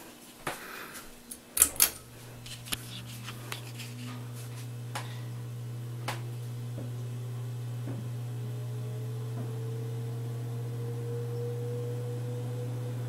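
2003 SMC 36-inch ceiling fan starting up: a few clicks, then about two seconds in a steady motor hum sets in, while a fainter whine rises slowly in pitch as the fan comes up to speed. The loud hum is what the owner blames on the fan's Chinese capacitors.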